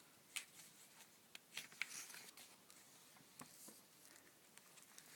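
Faint rustling and soft clicks of paper pages being handled and turned in an old book.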